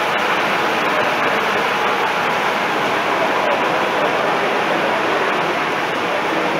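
Steady, dense hubbub of an exhibition hall crowd, many voices blending into a constant wash with no words clear.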